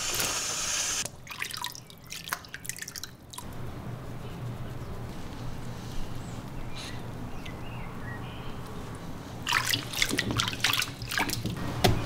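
Water from a handheld shower sprayer runs for about a second, then drips and splashes in a plastic tub as a wet cat is rinsed and rubbed by hand. The splashing picks up again near the end.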